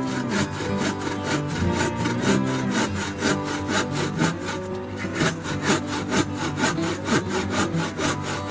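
A hand saw cutting through wood with fast, even back-and-forth strokes, about four a second, over background music.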